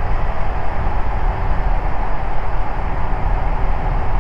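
Ikarus C42B microlight's engine and propeller running steadily in cruise, with rushing airflow noise.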